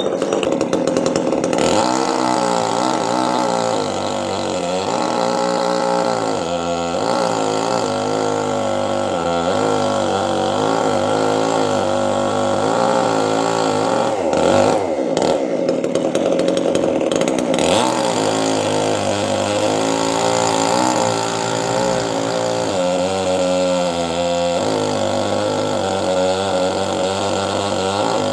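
Chainsaw cutting into a coconut palm trunk. Its engine pitch rises and falls steadily as the chain bites, with a sudden sharp dip and recovery about halfway through.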